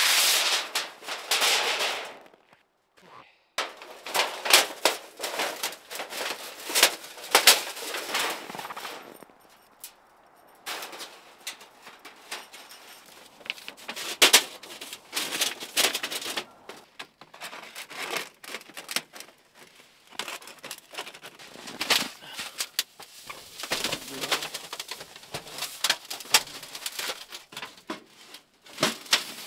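Irregular knocks, scrapes and crunches of wood and gear being handled on packed snow, including the setting up of a small wood stove.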